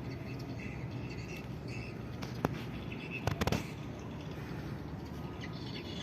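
Steady outdoor background with short high chirps of insects or birds recurring through it, broken by a single sharp knock about two and a half seconds in and a quick run of knocks just after three seconds.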